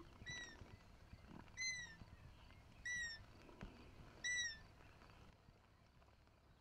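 Roe deer call (appeau) blown in four short, high squeaks, each falling slightly in pitch, about 1.3 s apart, imitating a roe doe's call to draw in a roebuck.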